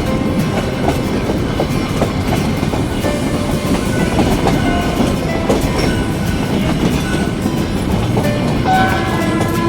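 Nilgiri Mountain Railway toy train running on the narrow-gauge track, a steady rumble and clatter of the carriage wheels over the rails. A few short, higher tones sound near the end.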